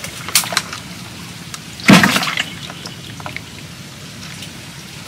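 Water splashing and dripping as a fish trap is worked by hand in shallow flood water beside a small boat: a few small knocks early on, then one loud splash about two seconds in that trails off into drips.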